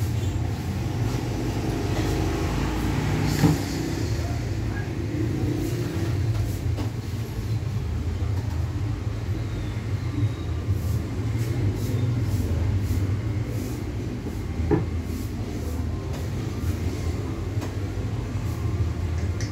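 Corded electric hair clipper running with a steady low buzz, with a sharp click about three and a half seconds in and another near fifteen seconds.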